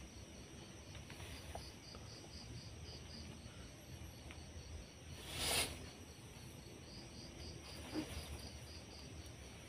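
Faint crickets chirping in a steady rapid pulse, about four chirps a second, with one brief rushing noise a little past halfway.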